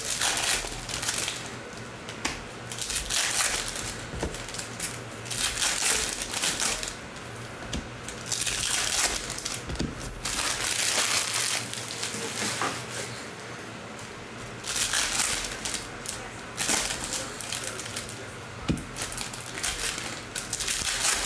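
Foil trading-card pack wrappers crinkling and tearing as they are ripped open by hand, in repeated bursts of a second or so every few seconds, with a few light clicks of cards being handled between them.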